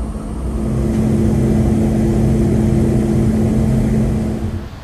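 Aircraft engines running steadily, a droning hum of a few held pitches over a low rumble. It swells about half a second in and fades out near the end.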